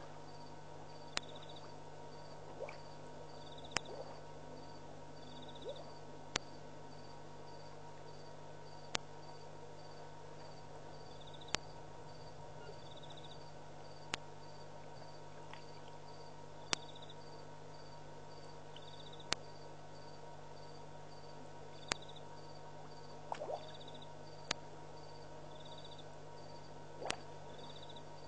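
Night insects and frogs calling at a waterhole: a high, cricket-like chirp repeats every few seconds over a faint steady pulsing, with sharp clicks about every two and a half seconds and a steady low hum underneath.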